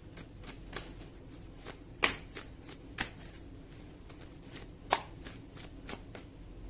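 A tarot deck shuffled by hand, the cards slapping and clicking together in irregular snaps. The sharpest snaps come about two seconds in and again near five seconds.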